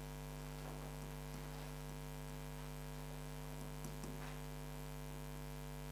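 Steady electrical mains hum, with a few faint taps a little under four seconds in.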